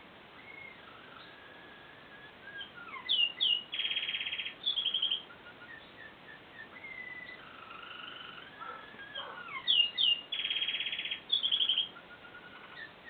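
Male American Singer canary singing: whistled notes and sweeping glides, with two loud passages of fast trills, about four seconds in and again about ten seconds in.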